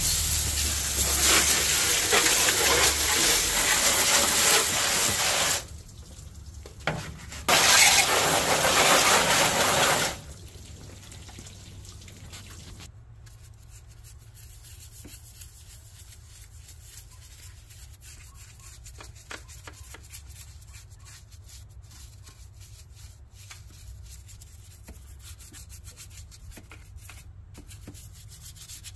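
Water spray hitting an engine bay, loud and steady, pausing briefly about six seconds in and stopping about ten seconds in. Then a small detail brush scrubbing on the top of a Toyota 22R engine, a soft run of faint scratches and light clicks.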